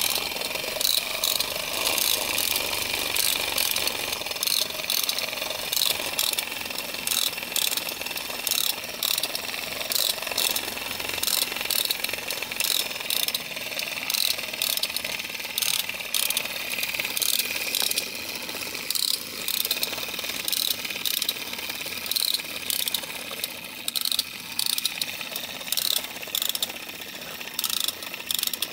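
The clockwork mechanism of a 1960s Alps wind-up bear toy running: a steady whirr of the spring motor and gears, with quick, repeated clicking. The toy is working as it should.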